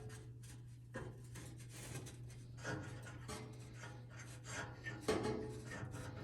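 Cotton swab twisting and rubbing inside a gas heater's pilot gas outlet to clean out dirt: soft, irregular scratchy rubbing with a few light knocks, over a steady low hum.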